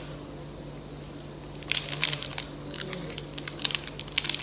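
Plastic candy wrapper crinkling in the hands in irregular bursts, starting a little under two seconds in, over a steady low hum.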